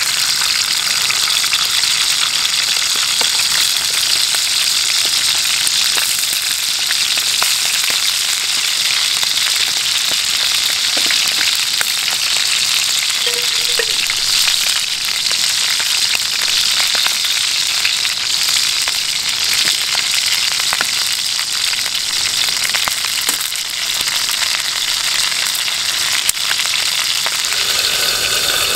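Sausages sizzling steadily in a frying pan over a wood-burning camp stove, with scattered small pops.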